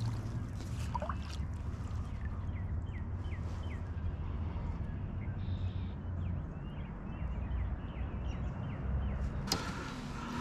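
A steady low outdoor rumble with faint, short, high bird chirps several times. A louder rustling comes in near the end.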